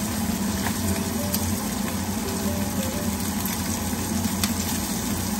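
Sausage meat and garlic sizzling steadily in a hot frying pan over a low, even hum, with a few faint clicks.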